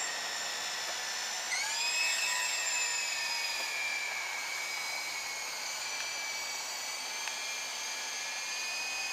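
High electric whine of small radio-controlled toy helicopters' motors and rotors. The pitch jumps up about one and a half seconds in as the throttle is pushed, then eases slowly down and holds steady.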